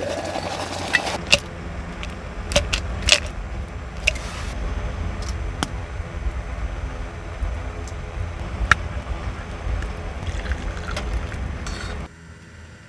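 Scattered light metallic clinks and taps of camping cookware being handled: a pot, a titanium mug and a metal mesh tea-infuser stick. A steady low rumble lies underneath.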